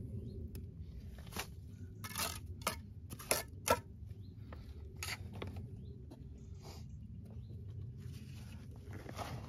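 Rough stone blocks being handled and set by hand, knocking and scraping against each other and the ground, with several sharp knocks in the first half. A steady low rumble runs underneath.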